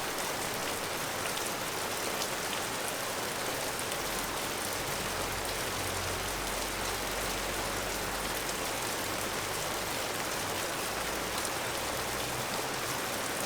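Steady rain falling, an even hiss with the fine patter of individual drops. A low rumble joins underneath about four seconds in and fades out near the end.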